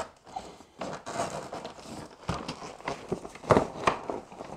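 Handling noise as a metal stringer is worked into place over the floor panels of an inflatable PVC boat: rustling of the boat's PVC fabric with scattered knocks, the loudest two close together near the end.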